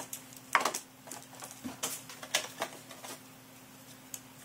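Trading cards being handled and sorted through by hand: a scattered series of short rustles and light clicks, the loudest about half a second in.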